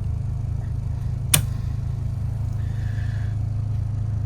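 A single sharp click about a second and a half in, typical of a switchboard breaker being switched off to take the boat off shore power, over a steady low machinery hum.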